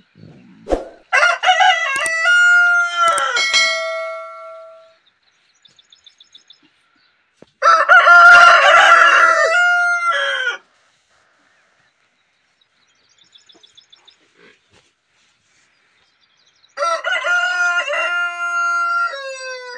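Rooster crowing: three long cock-a-doodle-doos about six to seven seconds apart, the middle one loudest, each ending on a held note that drops away at the end.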